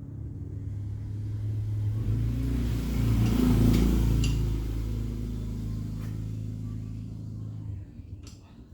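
Motorcycle engine running, louder for a moment about three to four seconds in, then cut off near the end.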